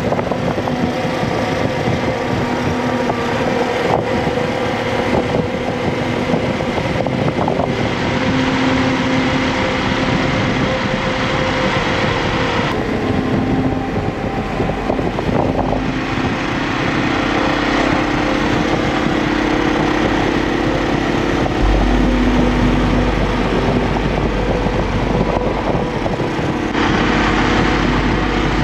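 Yamaha Serow 250's single-cylinder four-stroke engine running while under way, mixed with wind rush on the microphone. The engine note shifts pitch several times as the revs change.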